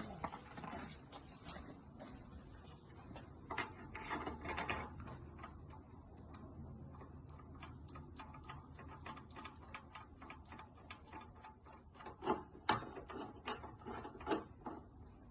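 Metal parts of a flood barrier being fitted by hand: a long run of small mechanical clicks, with a few sharper knocks near the end, as a compression bar and its grub screw go in on the second side.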